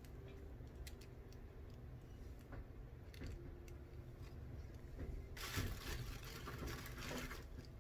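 Faint rustling and small clicks of hands working through crinkle-paper packing filler in an opened box, with a brief louder rustle about five and a half seconds in, over a low steady hum.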